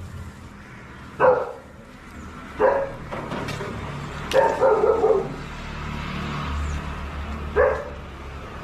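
A dog barking in single short barks a second or more apart, with a quick run of barks about halfway through, over a low steady hum.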